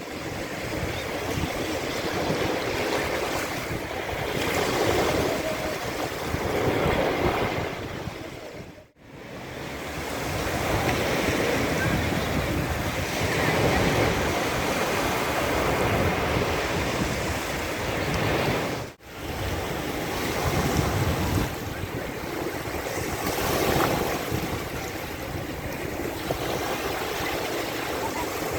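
Sea waves breaking and washing up onto a sandy beach, a steady surf that swells and eases every few seconds. The sound cuts out abruptly for a moment twice.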